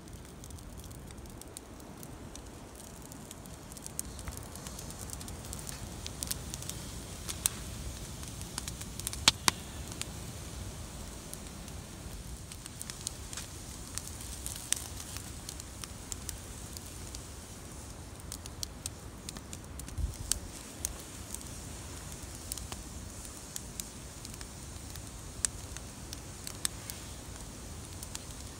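Wood campfire crackling, with sharp snaps and pops scattered through it from about four seconds in. Wind rumbles low on the microphone underneath.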